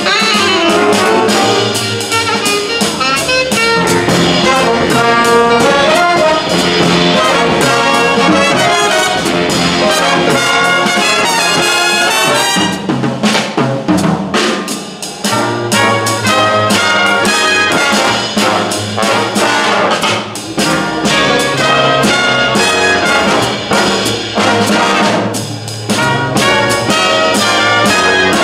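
Jazz big band playing a swinging arrangement, with the trumpet and trombone sections playing loud ensemble figures over drums and upright bass.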